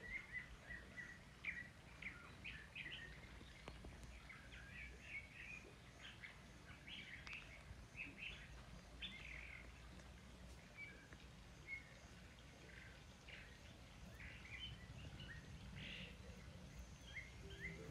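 Faint birdsong: many short chirps and calls from several small birds, over a low steady background rumble.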